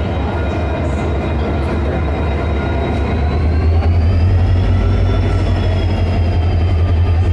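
A train moving through a station, with a heavy low rumble and thin high squealing tones. One of the squeals rises in pitch about three seconds in, and the rumble grows louder soon after.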